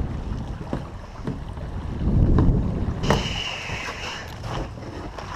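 Kayak landing at a gravel riverbank: wading and water sloshing in the shallows with small knocks and clicks, wind buffeting the microphone with a low rumble about two seconds in, and a brief hiss lasting about a second just after.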